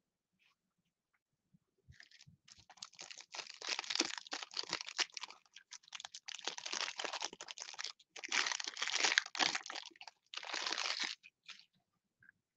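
Clear plastic wrapper of a pack of trading cards crinkling and tearing as it is pulled open by hand, in irregular crackling bursts from about two seconds in until shortly before the end.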